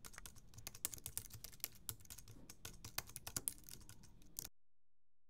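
Typing on a computer keyboard: a quick, uneven run of keystroke clicks that stops abruptly about four and a half seconds in.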